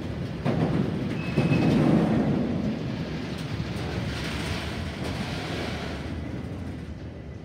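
Freight train of tank wagons rolling past, the wheels clattering over the rails. Loudest a second or two in, then fading away as the last wagon goes by.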